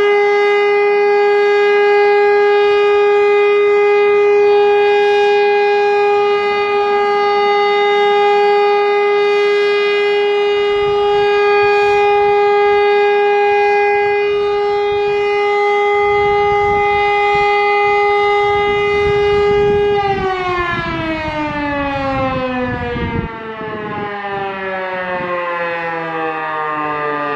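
Elektror L141 electric motor siren sounding the steady single tone of the Czech monthly siren test. About twenty seconds in the motor is cut and the pitch falls steadily as the rotor winds down.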